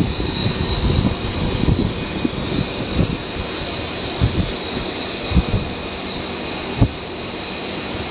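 Jet aircraft engines running with a steady rush and a faint high whine, over irregular low thumps.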